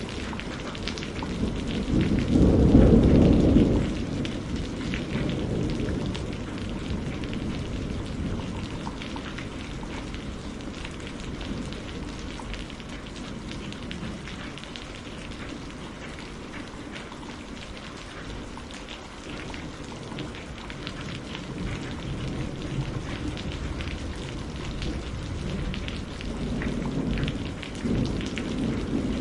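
Heavy rain falling steadily, with a rumble of thunder about two seconds in that is the loudest moment and dies away over a few seconds. A second rumble of thunder builds near the end.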